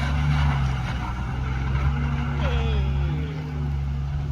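Heavy diesel engine running with a steady low drone, with a falling whine about two and a half seconds in.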